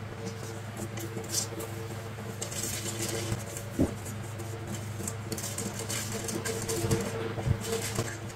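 Paper sticker sheets rustling and sliding against each other as they are handled and sorted by hand, in irregular bursts, with a few soft taps as sheets are set down on the desk. A steady low hum runs underneath.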